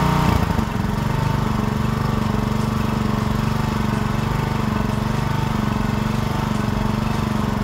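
Petrol engine of a PowerPlus POWXG9100 pressure washer running steadily with the wand laid down and no water spraying. Its sound shifts and drops a little about half a second in, then holds an even note.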